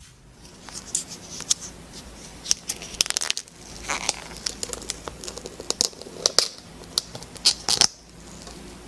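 Butter slime being squeezed and stretched by hand out of a plastic tub, giving an irregular run of sharp crackles and pops.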